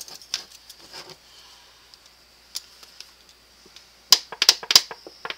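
Light clicks and taps of a plastic measuring spoon against a spice tin as ground black pepper is shaken out into the spoon: a few scattered taps, then a quick run of taps about four seconds in.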